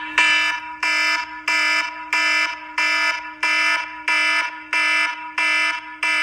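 An alarm beeping over and over, an even pitched beep about three times every two seconds, each starting sharply and fading away.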